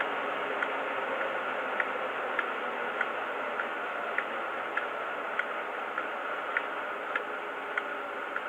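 DCC sound decoder in a Hornby HST model power car playing a recorded Paxman VP185 diesel engine idling, heard through the model's small upgraded speaker. It is a steady hum with a sharp tick repeating a little under twice a second.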